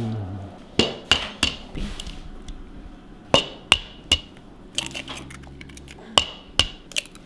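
Eggs being cracked on the rim of a mixing bowl: a series of sharp taps and clicks, several of them setting the bowl briefly ringing.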